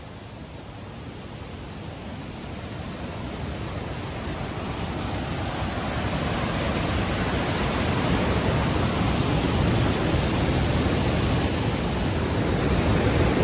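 Waterfall and rapids: a steady rush of falling water that grows gradually louder.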